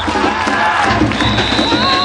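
Festival crowd shouting and cheering with music over it. A high, steady tone comes in about halfway through.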